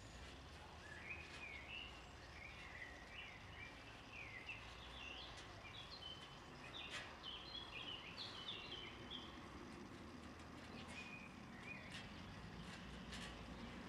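A songbird singing a long run of short, quick chirping phrases, with a couple of shorter phrases later on, over faint background noise.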